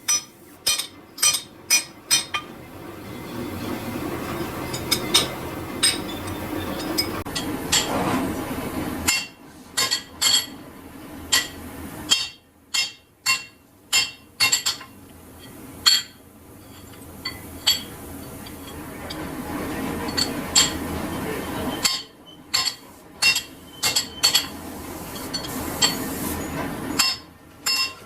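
Sharp metal clinks and taps come in quick groups, like metal being struck or tools knocking on steel. Between the groups a machine runs steadily.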